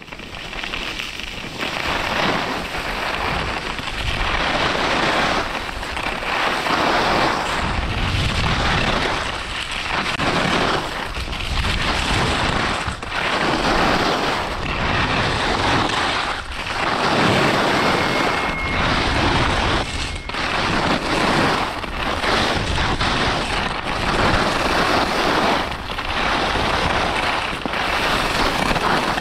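Skis carving and scraping over packed, icy snow on a fast downhill run, a loud hiss that rises and falls every two to three seconds, with wind rumbling on the camera's microphone.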